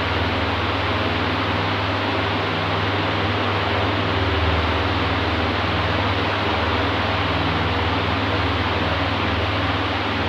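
Oscillating electric fan running steadily: an even rush of moving air over a low motor hum.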